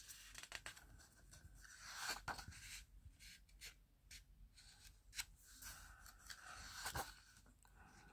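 Pages of a large illustrated book being turned by hand: faint paper rustles and soft swishes, a few separate page turns.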